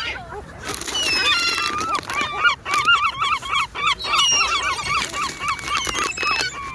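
A flock of birds calling, many overlapping, with quick repeated series of short calls from several birds at once.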